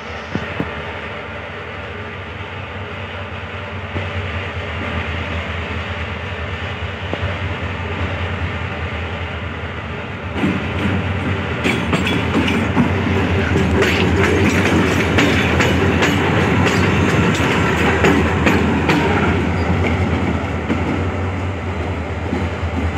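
Pakistan Railways GMU-30 diesel locomotive 4717 approaching, its engine running with a steady low hum that grows louder. About ten seconds in it comes close and gets much louder, its wheels clacking over the rail joints as it passes, then it moves away.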